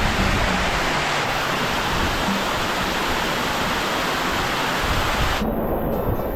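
Rushing water, a loud steady hiss. About five and a half seconds in it changes abruptly to a lower rumble.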